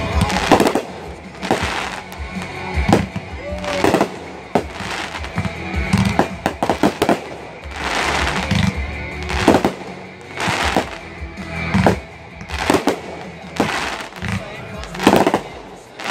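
Aerial fireworks launching and bursting again and again, about once a second with some quick clusters, over music playing.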